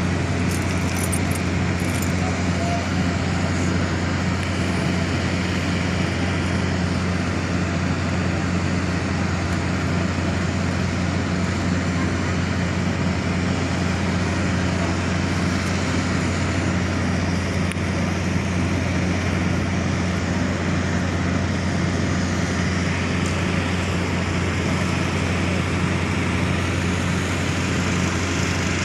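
Steady outdoor background noise: a constant low rumble and hum under an even hiss, with no distinct events.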